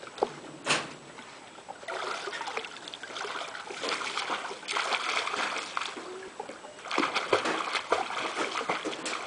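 Swimming-pool water splashing as a toddler kicks and paddles on his own, choppy and continuous, growing busier about two seconds in.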